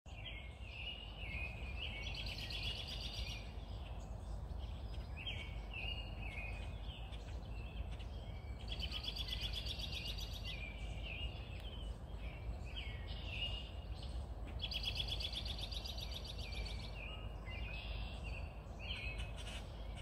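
Wild songbirds singing: short phrases and rapid trills that recur every few seconds, over a steady low background rumble.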